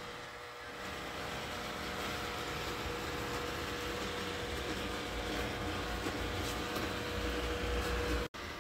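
Robot vacuum cleaner running across the floor: a steady whir of its suction fan and spinning side brushes, with a brief dropout near the end.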